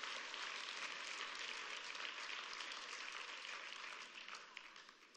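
A church congregation applauding with many hands, dying away near the end.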